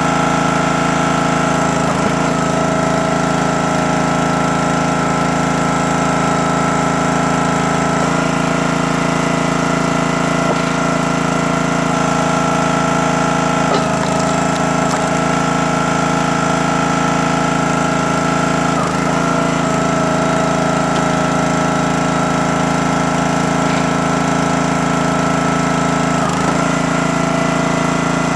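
Small gas engine of a 28-ton hydraulic log splitter running steadily. Its note shifts briefly every five or six seconds as the ram is worked through the splitting cycle.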